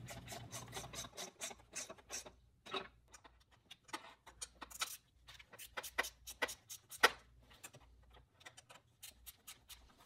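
A hand ratchet clicking in short runs of sharp clicks as the Torx bolts on an oil filter housing are tightened a little at a time, alternating between bolts so the gasket compresses evenly.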